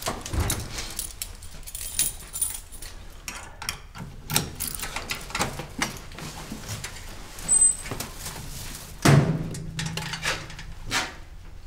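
Scattered knocks, clicks and rustling of objects being handled and moved, with one heavier thump about nine seconds in.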